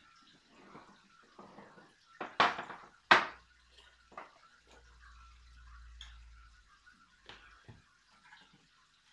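A wooden drawer scraped out of a small wooden cabinet and set down on a wooden table with a knock, about two and three seconds in. A few lighter knocks follow as a tray of game pieces is handled.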